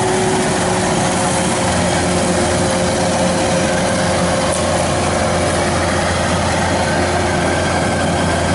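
Kubota DC 93 combine harvester running steadily while cutting rice in a flooded paddy: a loud, even engine and machinery drone with steady whining tones over it.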